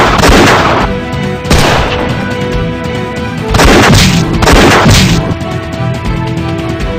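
Gunshots in a drama soundtrack: a series of loud bangs, some in quick pairs, over steady background music.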